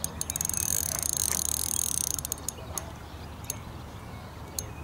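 A fishing reel's ratchet clicking fast for about two seconds, then a few single clicks, while a hooked carp is being played.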